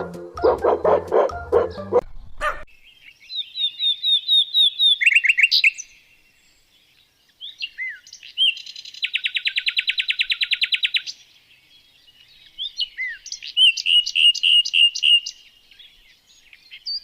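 A songbird singing: phrases of high chirps and whistled notes, with a fast rapid-fire trill in the middle and short pauses between phrases. For the first two seconds or so a farm animal's repeated calls are heard before they cut off.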